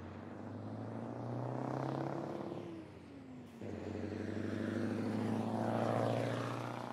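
Heavy diesel road-train prime mover engine running under load, a steady low engine note whose pitch falls about two and a half seconds in. The sound then breaks off abruptly into another stretch of engine note that swells and begins to fade near the end.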